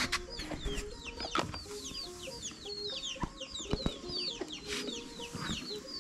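Domestic chickens: chicks peeping over and over in short, high, falling chirps, several a second, with a few soft clicks of utensils.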